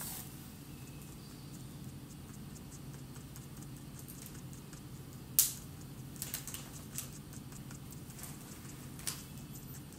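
Fine tip of a Touch marker tapping dots onto paper: scattered light ticks, with a sharper click about halfway through, over a low steady hum.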